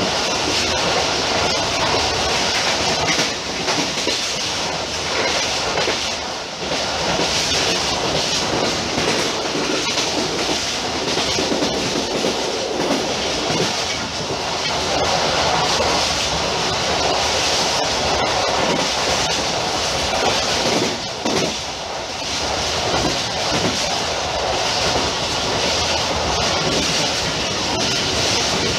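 Running noise of a moving passenger train heard from the rear of its last coach: steady wheels-on-rail noise with clatter over rail joints and points.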